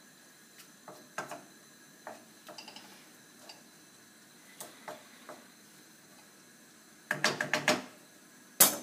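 Wooden spatula stirring zucchini noodles in a non-stick wok, with scattered light knocks of the spatula against the pan. Near the end comes a quick run of about five knocks, then one louder knock.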